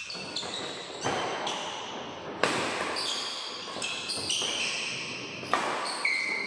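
Badminton rackets striking a shuttlecock in a fast doubles rally: a string of sharp, ringing hits about every half second, echoing in the hall.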